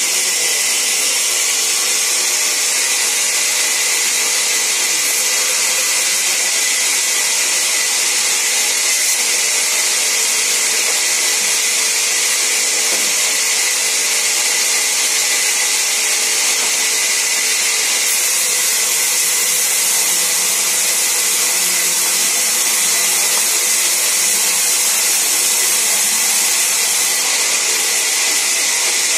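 Sawmill band saw running steadily while ripping timber into long thin planks: a constant, loud, high hiss that does not let up.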